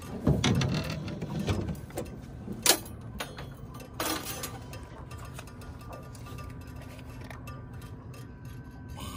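Handling noise: rustling, then a few sharp clicks and knocks, the loudest about two and a half and four seconds in, over a low steady background.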